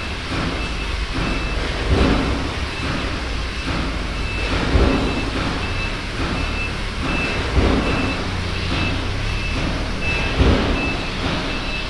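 Industrial plant machinery running steadily, a dense hum and rush with a heavier surge about every three seconds. Over it a high beeping tone sounds in short pulses, about two a second, on and off.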